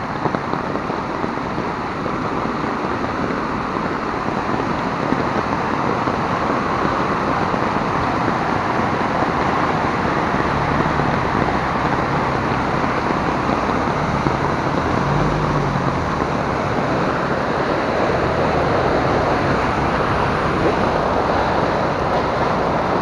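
Floodwater torrent rushing and churning down a street-side channel in a heavy rainstorm, a steady rushing noise of turbulent water.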